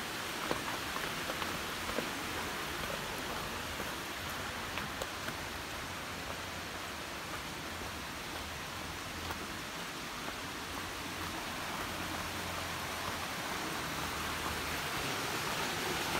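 Running water of a rocky creek, a steady rushing noise that grows louder toward the end, with a few faint footstep taps on concrete steps.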